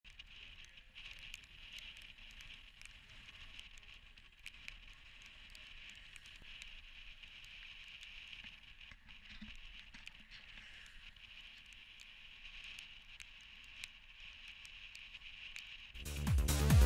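Faint steady hiss of road-bike tyres on wet tarmac, with scattered small ticks. Loud electronic dance music comes in near the end.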